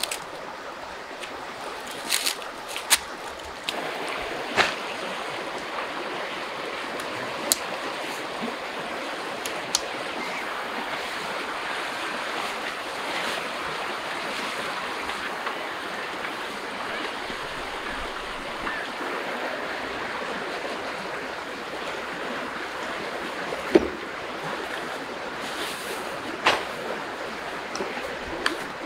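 A few sharp knocks in the first seconds, then the steady rush of a river running over rocky shallows, with an occasional click or knock.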